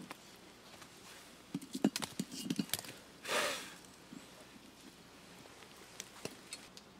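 A few sharp knocks and clinks of a cast iron pan and its lid on a metal fire grate as the pan is hooked with a stick and lifted off the fire, then one short scraping hiss and a couple of faint clicks.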